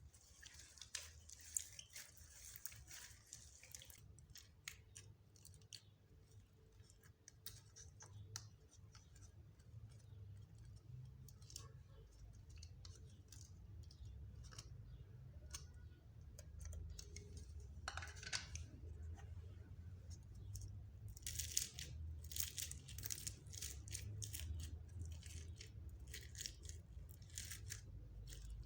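Slime being kneaded and stretched by hand, making faint sticky clicks and crackles that grow denser in the second half.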